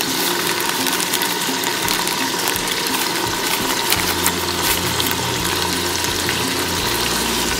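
Onion, tomato and garlic-ginger masala frying in oil in an Instant Pot, a steady sizzle with small crackles.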